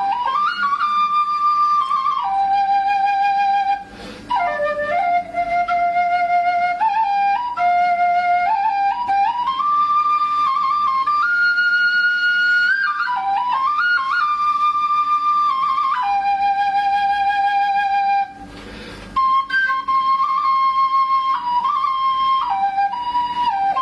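Music: a solo flute melody of long held notes stepping up and down, with two short breaks, about four seconds in and again near the end.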